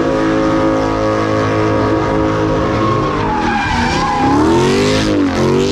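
A Dodge Charger doing donuts, its engine held at high revs while the rear tyres spin and screech on the pavement. About three seconds in, the revs start dipping and climbing again, several times over.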